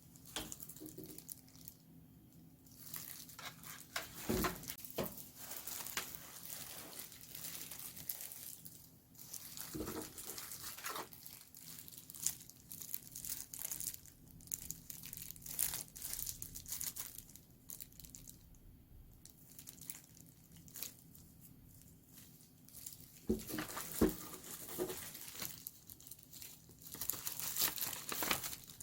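Packaging being torn open and crinkled by hand during an unboxing: rustling and tearing in several bursts, with a few dull knocks.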